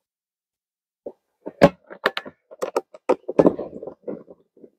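Screwdriver working a screw into the hollow black plastic drum of a compost tumbler being assembled: irregular clicks and knocks of metal on plastic, starting about a second in, with a denser cluster of knocks a little past the middle.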